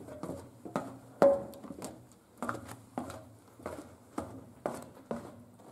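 Footsteps going down a flight of stairs: an irregular run of knocks, two or three a second, with one sharper knock about a second in.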